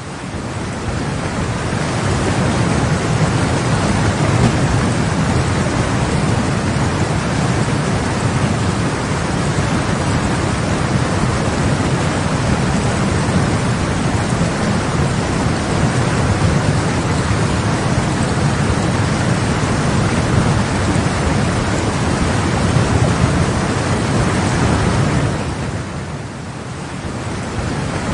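Muddy floodwater rushing in a steady, loud, continuous rush of noise that eases briefly near the end.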